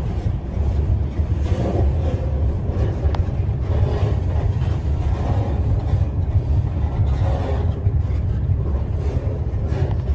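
Freight train rolling, heard from inside a gondola car loaded with scrap metal: a steady low rumble of the car on the rails. A faint high whine comes and goes, around two seconds in and again from about four to six seconds.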